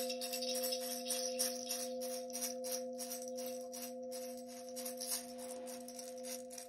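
A hand shaker rattled in a quick, even rhythm of about four or five shakes a second, over a steady, unbroken ringing tone.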